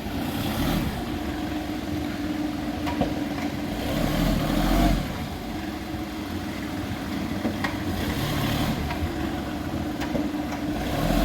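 Volkswagen Polo BlueMotion's engine running at idle, swelling briefly about four seconds in and again near the end, with a couple of faint clicks.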